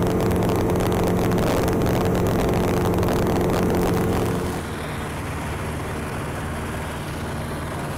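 Just Aircraft Highlander light aircraft's engine and propeller running at high power in the climb after takeoff, a steady drone. About four and a half seconds in, it drops noticeably in level and carries on more quietly.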